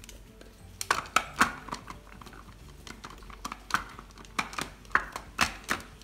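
The stainless motor head of a Mitochiba electric food chopper is fitted onto its plastic bowl by hand, giving a quick series of sharp plastic-and-metal clicks and knocks. The motor is not yet running.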